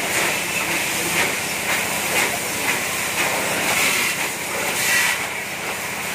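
Water jets of an oscillating automatic bike wash spraying, a steady hiss that swells about once a second.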